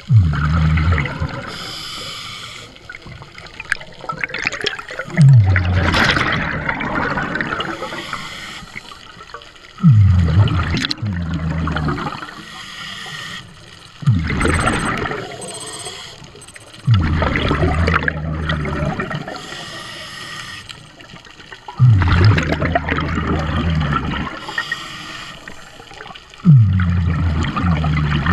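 Scuba diver breathing through a regulator, a cycle of hissing inhalation and gurgling bursts of exhaled bubbles that repeats about every four to five seconds, six times over.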